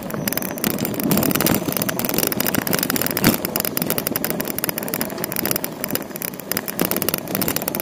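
Street traffic and road noise from a moving bicycle: a steady noisy rumble of car traffic and tyres, crossed by rapid small clicks and rattles, with one sharp knock about three seconds in.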